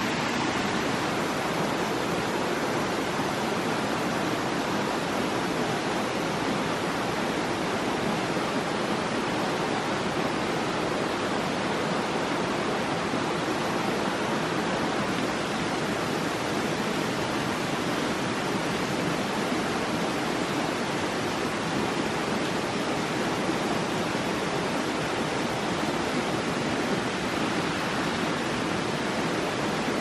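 Steady rush of a rocky forest stream flowing.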